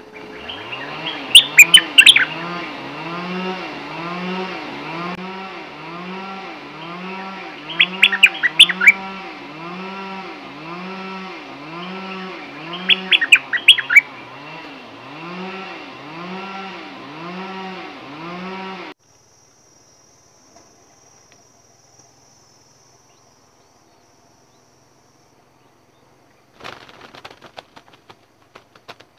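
A chainsaw cutting trees some way off, its engine pitch rising and falling about once a second, very loud; short bird chirps break through three times. It cuts off suddenly, and near the end a bird flutters its wings against a bamboo trap cage.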